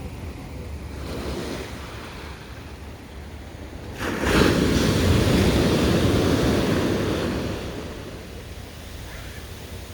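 Ocean surf: a wave breaks suddenly about four seconds in, stays loud for about three seconds, then fades, over a steady low rumble.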